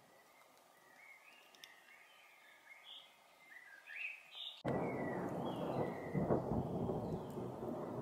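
A bird calls in short rising chirps. About halfway through, a loud rumble of thunder comes in suddenly and keeps rolling, drowning the chirps.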